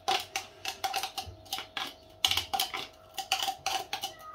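Quick, irregular clicks and clatters of kitchen utensils against dishes and containers, several a second.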